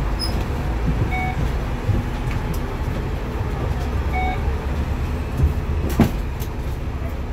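Bus engine running, heard inside the bus's passenger cabin as a steady low drone. Two short beeps come about three seconds apart, and a sharp click sounds near the end.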